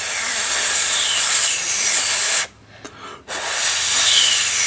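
Hot water running from a tap, rinsing off printer ink; it stops about two and a half seconds in and starts again a second later.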